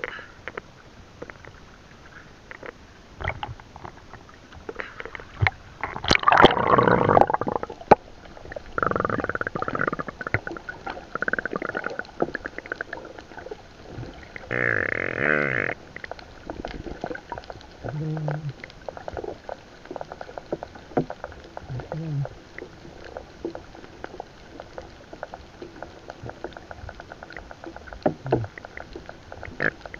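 Sea water heard through a submerged camera: muffled gurgling and a steady scatter of small clicks and crackles, with a few louder gurgling bursts, the biggest about six seconds in.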